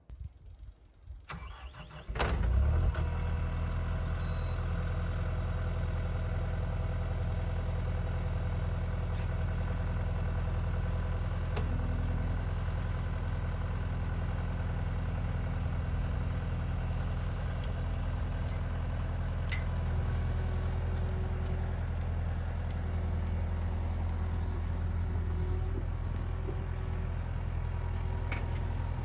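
Skid steer engine starting: a couple of seconds of uneven cranking, then it catches with a sudden jump in level and runs steadily.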